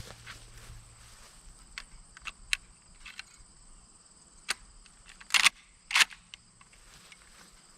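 Light metallic clicks, then two loud sharp cracks about half a second apart, from a Winchester 94 lever-action rifle in 30-30 being readied and shot at a steel-armour plate.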